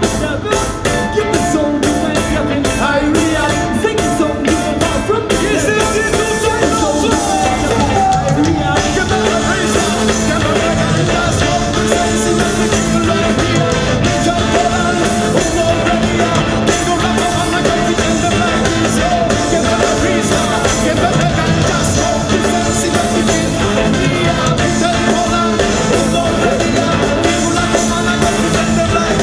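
A reggae band playing loud live music, with drums, bass guitar, keyboards and brass, and some singing. The drum strokes stand out most in the first few seconds.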